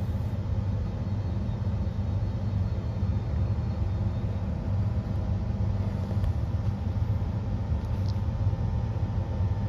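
Inside a Queensland Rail NGR electric multiple unit carriage: a steady low rumble as the train pulls away from the station.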